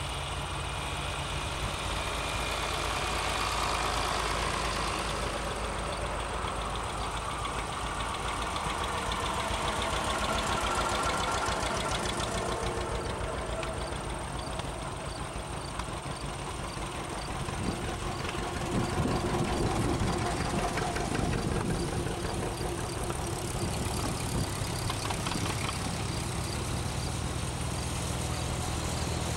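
Vintage farm tractors driving past one after another on a gravel road, their engines running steadily and swelling louder as each one passes close.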